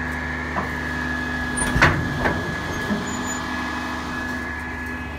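Peterbilt 348 roll-off cable hoist truck's diesel engine running steadily, with a steady high whine over it. Two sharp clanks about two seconds in, the first the loudest.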